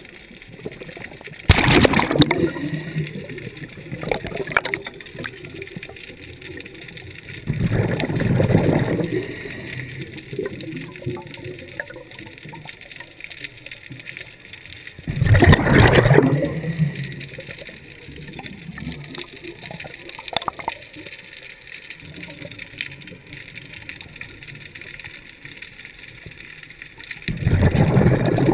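Scuba diver's exhaled air bubbling and gurgling out of the regulator underwater in four bursts of a second or two, several seconds apart, with a faint hiss between breaths.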